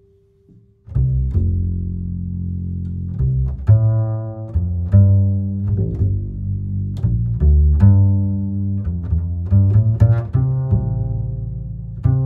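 Background music coming in about a second in, with a low bass line and sharp, plucked string notes.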